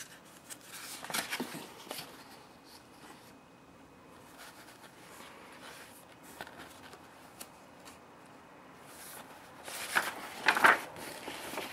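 Paper brochure pages being handled and turned: a short rustle about a second in, then a louder flurry of page-turning near the end, with little sound in between.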